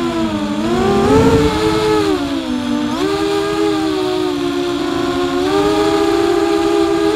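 FPV drone's electric motors and propellers whining, the pitch dipping and rising with the throttle and jumping up sharply about three seconds in. A rush of air noise comes with the rise about a second in.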